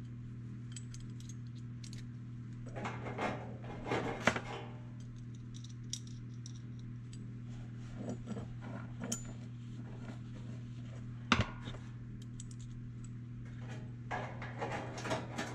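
Small steel butt-welding clamp being handled and fitted onto the edge of sheet-metal panels: scattered light metal clicks and clinks, with one sharp click about eleven seconds in and more clatter near the end. A steady low hum runs underneath.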